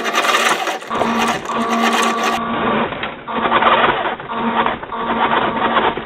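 Drive motor and gearbox of a 1/6-scale remote-control Opel Blitz truck whining in short spurts, stopping and starting several times as the truck is driven.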